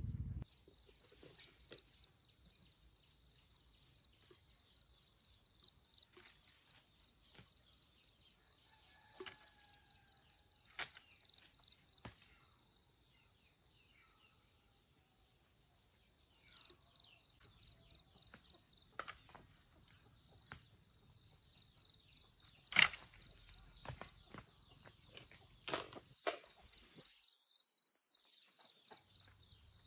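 Steady high-pitched chirring of insects, with scattered light clicks and knocks and one sharper knock a little past two-thirds of the way through.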